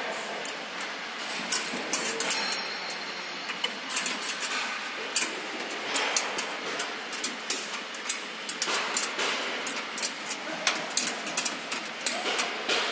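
Irregular light metallic clicks and clinks of a bolt and nut being fitted by hand at the roller-chain sprocket of a reaper's cutter-bar drive. Steady workshop background noise underneath.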